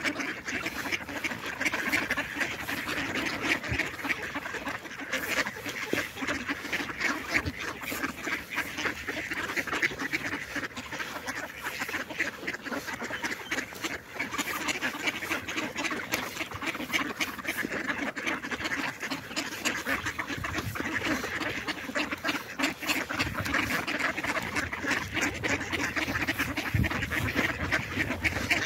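A large flock of mallards quacking, many calls overlapping in a continuous chatter without a break.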